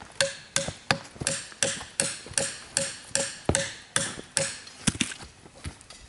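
Field knife blade striking again and again into a rotten pine stump to split out resin-rich fatwood: about a dozen sharp knocks, two to three a second, each with a short metallic ring.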